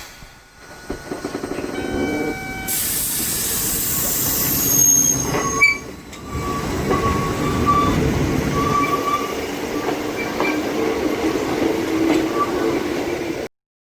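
Hakone Tozan Railway 1000-series electric train running on the rails: rumbling and clattering, with the wheels squealing in drawn-out tones. A loud hiss starts about three seconds in and fades a couple of seconds later. The sound cuts off suddenly near the end.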